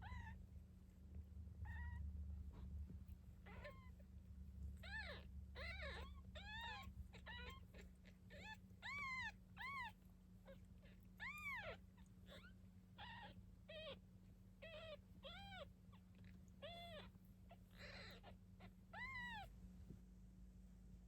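Nine-day-old kittens mewing, many short high-pitched cries that rise and fall, one or two a second, sometimes overlapping.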